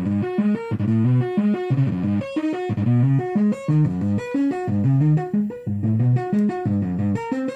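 Sequenced sine-wave synth notes, gated by an envelope-driven VCA and fed through an op-amp Big Muff Pi fuzz circuit: a fast, continuous run of short distorted notes, several a second, jumping between pitches.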